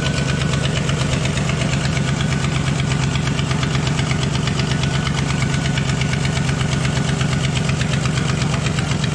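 2000 Ford Explorer's engine idling steadily, heard up close under the open hood, with the air conditioning switched on at full cool during an AC refrigerant recharge.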